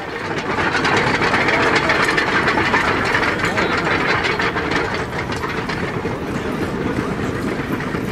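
Team of horses hauling the Ameland lifeboat on its wheeled carriage over beach sand: a steady rushing clatter with many small clicks and rattles from harness, chains and carriage, swelling about a second in.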